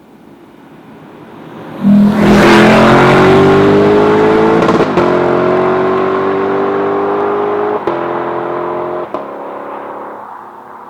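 Sports car launching hard and accelerating away. The engine note rises steadily, broken by three quick upshifts about five, eight and nine seconds in, and the sound fades gradually as the car pulls away.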